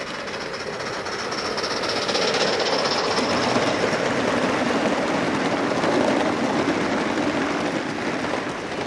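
Gauge 1 model train, a locomotive hauling a rake of coaches, running past on its track: the sound of the wheels on the rails builds as it comes near and eases off near the end as the coaches go by.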